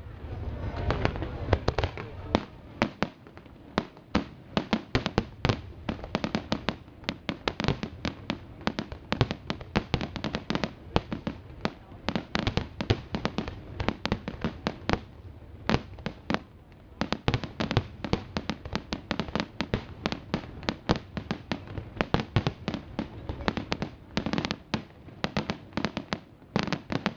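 Aerial fireworks display: a dense, continuous barrage of sharp bangs and crackling reports, with a heavy boom about a second in and thicker volleys near the end.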